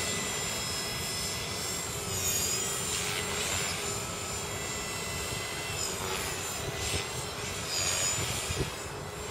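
KDS 450 flybarless RC helicopter in flight: the high whine of its electric motor and drivetrain over the rotor blade noise. The whine dips and rises in pitch several times as the helicopter manoeuvres.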